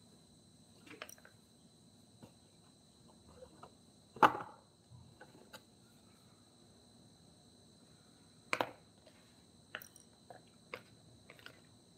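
Irregular knocks and taps of tools on wood: one loud knock about four seconds in, a quick double knock near the nine-second mark, and lighter taps in between and towards the end, over a steady high-pitched hum.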